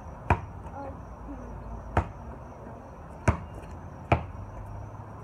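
A basketball bouncing four times, sharp slaps at uneven intervals, the last two closer together.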